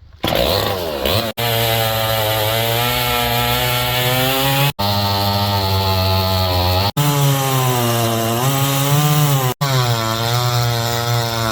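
Two-stroke chainsaw running at high speed, its pitch wavering slightly as it revs or loads. It is cut off for an instant about four times, at roughly one, four and a half, seven and nine and a half seconds in.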